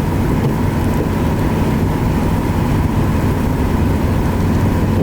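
Steady engine and road noise from inside a moving vehicle, a continuous low rumble.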